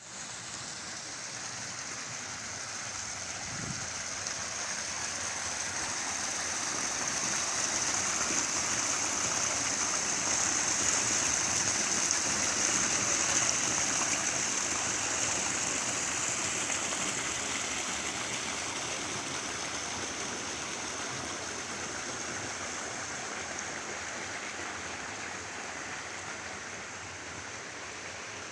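Flowing stream water, a steady rushing that grows louder toward the middle and then eases off.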